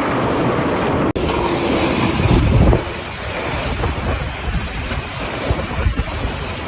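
Strong wind blowing hard across the microphone: a loud, steady rush with gusty swells. The sound changes abruptly about a second in, at a cut between clips.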